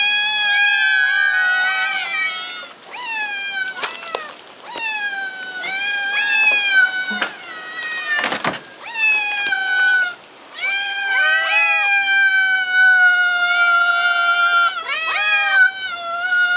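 Several domestic cats meowing over one another, a steady chorus of overlapping meows, some short and some long and drawn out, begging to be fed.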